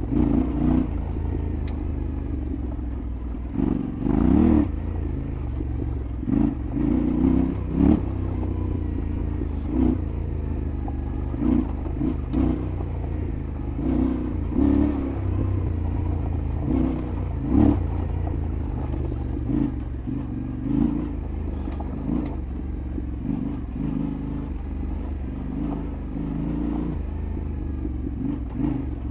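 Yamaha Ténéré 700 World Raid's parallel-twin engine running off road, the revs swelling and dropping in short bursts of throttle every second or two. Scattered clicks and clatter, as from stones and the bike over rough ground, sound among it.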